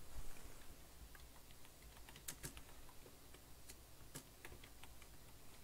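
Faint, irregular keystrokes on a computer keyboard, with a dull low bump right at the start.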